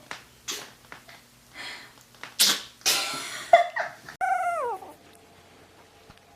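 A puppy sneezing in a few short, sharp bursts, the loudest about two and a half and three seconds in, followed just after four seconds by a brief whine that falls in pitch.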